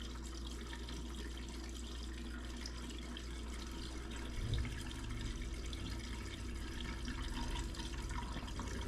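Windshield washer fluid being poured steadily into a car's washer reservoir, a continuous liquid pouring sound.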